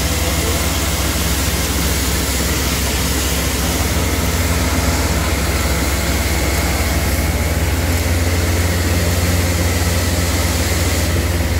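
Western Star hydrovac truck's Weichai diesel engine and vacuum system running steadily at working speed: a loud, deep drone under a wide, even hiss.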